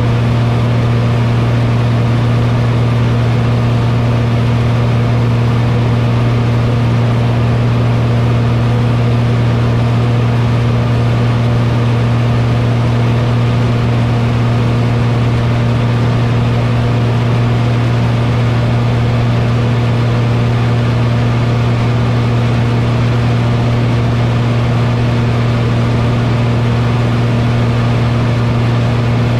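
Light aircraft's piston engine and propeller droning steadily at one low pitch, heard from inside the closed cockpit, with even rushing noise under it.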